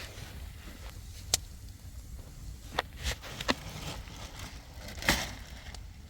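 A handful of sharp, irregularly spaced knocks and clicks over a steady low rumble, the loudest and longest about five seconds in.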